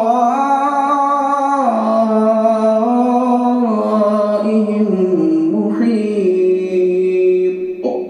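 A man reciting the Quran in melodic tajweed into a microphone, heard through a mosque's newly upgraded mixer and speakers: one long drawn-out phrase whose pitch steps slowly up and down, breaking off near the end.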